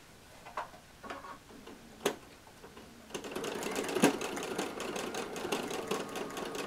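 Home sewing machine doing free-motion embroidery: a few separate clicks, then from about three seconds in it stitches at speed, a fast, even run of needle strokes.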